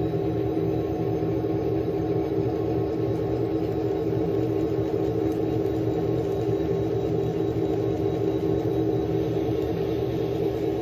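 N scale model train running on the layout, a steady electric motor hum with the rolling noise of its wheels on the track.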